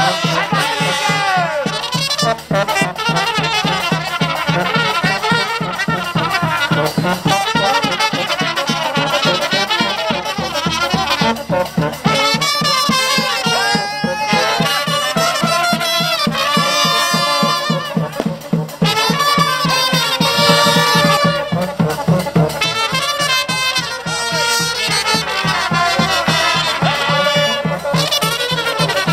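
Brass band with trumpets playing traditional folk dance music, with a steady beat.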